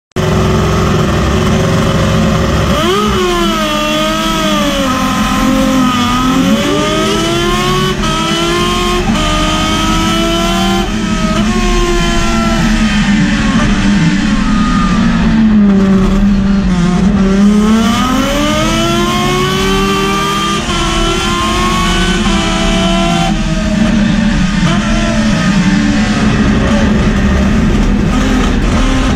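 Race car engine heard from inside the cockpit, running loud and revving up and down. Its pitch climbs about three seconds in, wavers, sags around the middle and climbs again.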